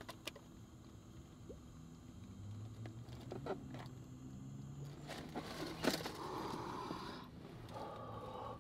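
Long, quiet draws on vape pens, with a faint high steady whistle for the first few seconds, then breathy exhaling of the vapour near the end.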